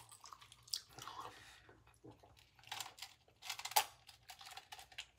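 Quiet close-up mouth sounds: chewing, then sips from a foam cup, heard as soft scattered clicks that cluster a little before the drink.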